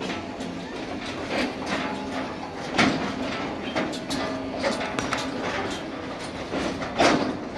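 Excursion train riding slowly on its track: wheels clacking and knocking irregularly over the rail joints, the car rattling, over a steady low hum from the train. The loudest knocks come a little before three seconds in and again about seven seconds in.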